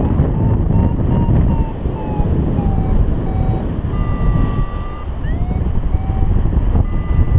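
Paragliding variometer beeping in short tones about three a second, the pitch sagging over the first few seconds, then a longer steady higher tone about four seconds in and a few short rising chirps, over heavy wind rush on the microphone. The vario's beeps are its climb signal, telling the pilot he is in rising air.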